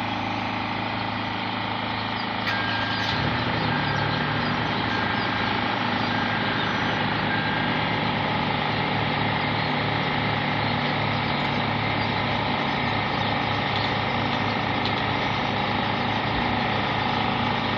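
A 2009 Toyota/Lexus car engine running steadily at idle, test-run after its fuel injectors have been replaced. The idle rises slightly about two and a half seconds in, then holds steady.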